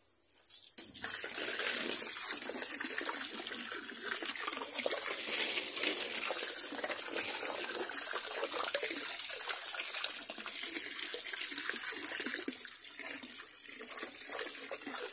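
Water from a garden hose running and splashing into a foam box of soaked coconut coir, starting about a second in and running steadily: rinsing the lime out of the coir.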